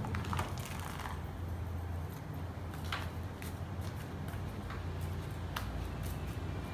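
Loose potting soil pouring and rattling into a plastic pot, then a bamboo stick poking and tapping the soil in around the root ball: scattered soft ticks and clicks. A steady low hum runs underneath.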